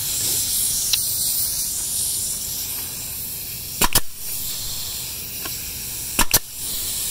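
Porter Cable FN250SB pneumatic finish nailer firing twice, about two and a half seconds apart. Each shot is a sharp double crack.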